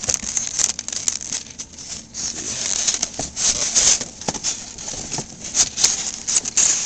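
Plastic wrapping crinkling and rustling as an airsoft shotgun is pulled out of its packaging, with irregular small clicks and knocks from handling.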